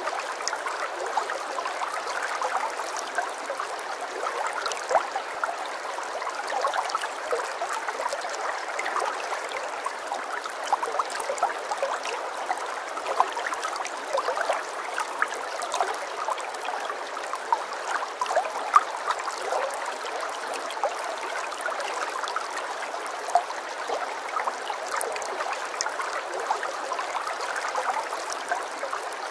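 Running water: a small stream trickling and splashing steadily, with many small quick splashes over an even rush.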